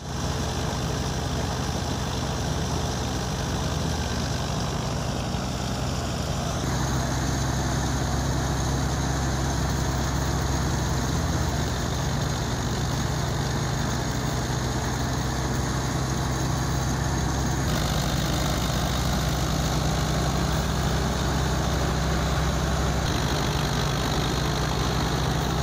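Tractor diesel engine running steadily under load, driving a belt-powered wheat thresher whose drum runs along with it. The mix shifts abruptly a few times.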